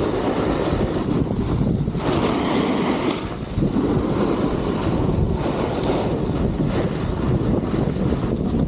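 Wind rushing and buffeting over the microphone of a camera carried by a moving snowboarder, a steady low rumble that rises and falls. Mixed in is the hiss of the snowboard sliding and scraping over packed snow.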